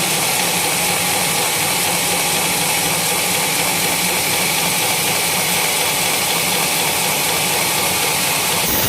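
Sawmill running steadily while sawing coconut palm trunks, a loud even mechanical noise; the sound changes abruptly just before the end.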